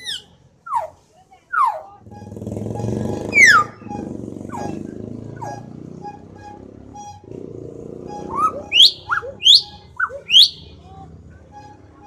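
Common hill myna giving loud, sharp whistles that sweep down in pitch: three in the first two seconds, a louder one a little later, and a quick run of four near the end. A low engine rumble, like a passing motor vehicle, runs beneath for several seconds in the middle.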